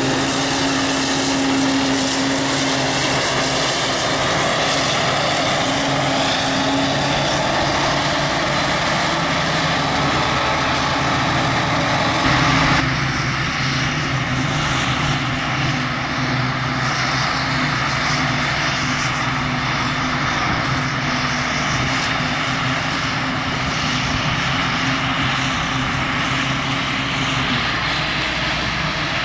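Tractor pulling a large silage trailer runs close past, its engine a steady drone. About halfway through the sound changes to a Claas Jaguar self-propelled forage harvester chopping grass, with the tractor and trailer running alongside: a continuous steady drone of engines and chopping drum.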